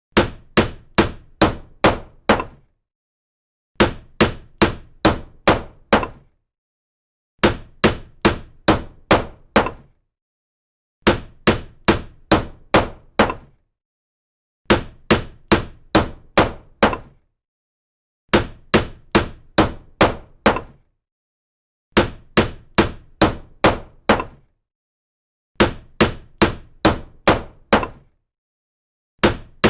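Hammer blows, a sound effect: runs of about six sharp strikes, each under half a second apart, repeated over and over with a second or so of complete silence between runs.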